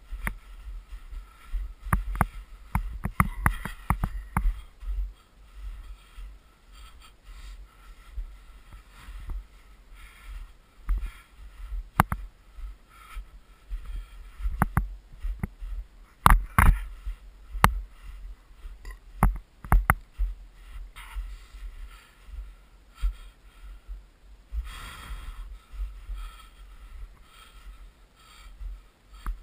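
Footsteps in snow on a downhill trail, with irregular sharp knocks and rustling, loudest about sixteen seconds in, over a steady low rumble on the microphone.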